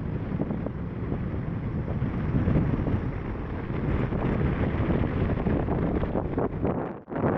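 Wind buffeting the microphone: a steady low rumble with no tone in it, cut off briefly near the end.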